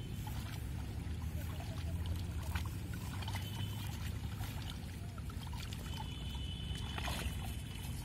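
Water sloshing and trickling as a bamboo-framed push net is shoved through shallow canal water by people wading, with scattered small splashes over a steady low rumble.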